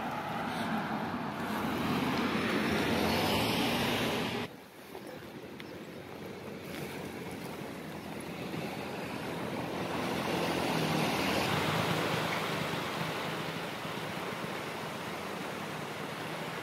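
Steady outdoor city-street noise, an even rushing wash that cuts off abruptly about four and a half seconds in and then swells back up.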